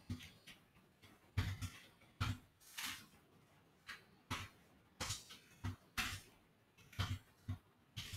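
Computer keyboard keys being typed: about fifteen short, irregularly spaced keystroke clicks.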